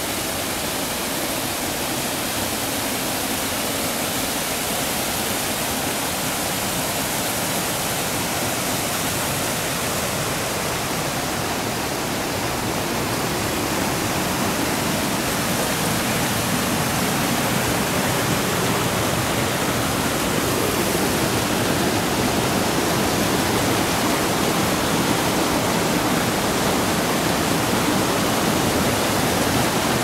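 Mountain stream rushing over rocks in small cascades: a steady wash of water noise that grows a little louder from about halfway through.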